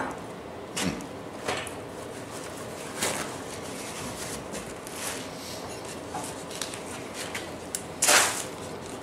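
Paper plates and food being handled on a workbench: a few short scrapes and knocks, the loudest about eight seconds in, over steady background noise.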